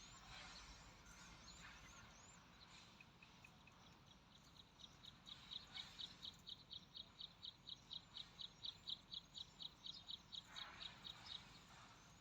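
A bird calling faintly: a few thin upward-sweeping notes, then a fast, even string of short high notes, about four a second, lasting some seven seconds.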